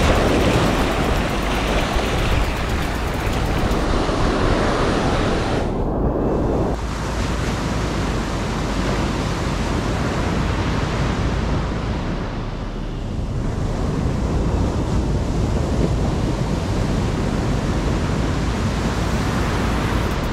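Ocean surf breaking and washing up a sand beach, a steady rushing noise that is somewhat heavier in the first several seconds.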